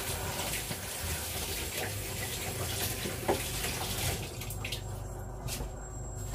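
Kitchen tap running into a sink while potatoes are washed under it. The water shuts off about four and a half seconds in, followed by a few light knocks.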